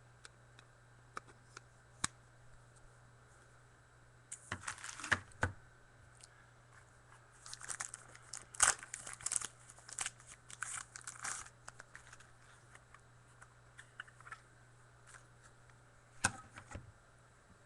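Plastic crinkling and rustling with small clicks as trading cards are handled, in two spells of rustling about four seconds in and again from about seven to eleven seconds in, over a faint steady low hum.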